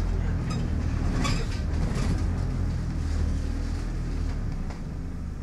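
Alexander Dennis Enviro 200 Dart single-deck bus heard from inside the saloon while under way: a steady engine and road rumble, with a brief clatter about a second in. The rumble eases a little near the end.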